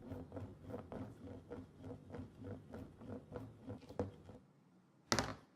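Cartoon sound effect of a spinning hoop: a quick, even pattering of about four or five ticks a second over a low hum, stopping about four and a half seconds in, followed by one short swish near the end.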